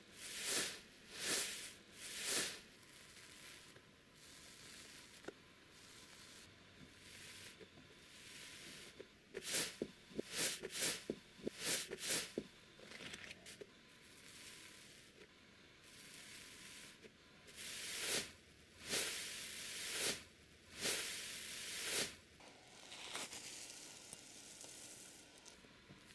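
A hand pressing into fluffy slime, giving a hiss of air with each press. Several quick presses open the stretch, a rapid cluster follows in the middle, and four longer, slower presses come near the end.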